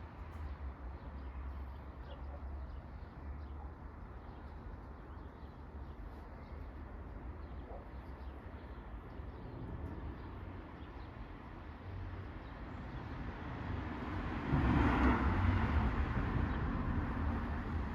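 Outdoor ambience: a steady low rumble under a faint even hiss, with a louder rushing swell that builds about fourteen seconds in and slowly eases off.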